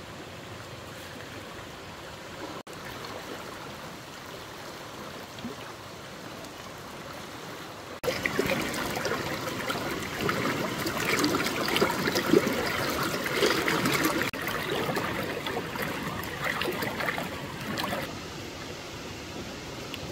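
Stream water rushing in a steady wash. About eight seconds in it turns abruptly louder and splashier for some ten seconds, then drops back to the steady wash.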